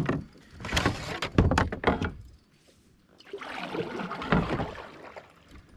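Knocks and clatter of gear against a kayak for about two seconds. After a short pause comes a longer swish of water as the kayak is moved around.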